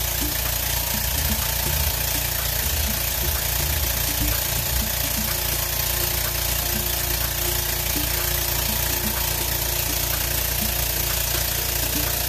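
A machine running steadily: a constant low hum under an even hiss, with no change in pitch or level.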